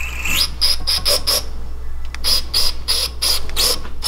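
Aerosol can of brake cleaner sprayed through its straw down a freshly tapped threaded hole in short hissing bursts, flushing the metal shavings out of the threads. There are about five quick bursts, a short pause about a second and a half in, then about seven more.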